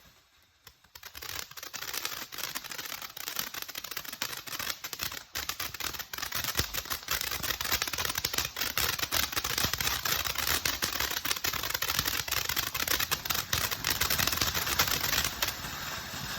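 Bright Star Pot Mums 200-gram fountain firework: a dense, rapid crackle of popping dragon-egg stars starts about a second in and runs on. It thins to a steadier hiss near the end.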